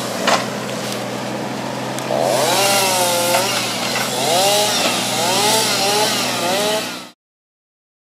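Forestry machinery running: a steady engine hum with a whine that swings up and down in pitch again and again, growing louder and noisier about two seconds in. It cuts off suddenly about seven seconds in.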